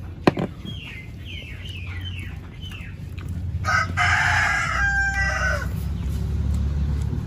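A rooster crowing once, a loud harsh call about three and a half seconds in that falls away at the end, after a run of short falling chirps. A sharp click comes just after the start.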